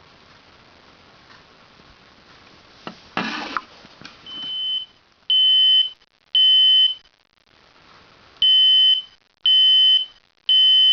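Smoke detector going off in its alarm pattern: loud, shrill beeps of about half a second each, in two groups of three with a pause between, the standard three-beep fire-alarm signal. The first beep swells up, and a short noisy burst comes just before it, about three seconds in.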